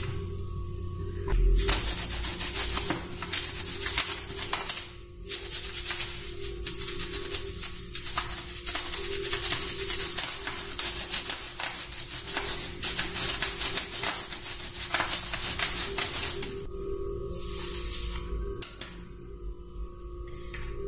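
A toothbrush scrubbing the wet, soapy plastic of a membrane keyboard in rapid back-and-forth strokes. It pauses briefly about five seconds in and stops about three-quarters of the way through, leaving a few short rubs near the end.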